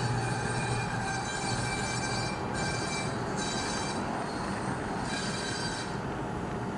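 O gauge model freight cars rolling past on three-rail track, with a steady metallic rumble. A high, thin wheel squeal comes and goes three times, strongest over the first couple of seconds.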